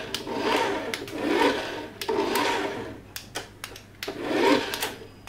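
Small electric drive motor and gears of a toy remote-control fire truck whirring as it drives, in three bursts of about a second each with short pauses between.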